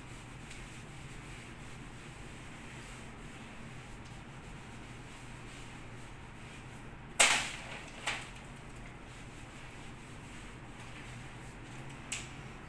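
Faint rubbing of a hand sanding pad on a puttied wall, over a steady low hum. A sharp knock about seven seconds in is the loudest sound, followed by a smaller one about a second later and a faint click near the end.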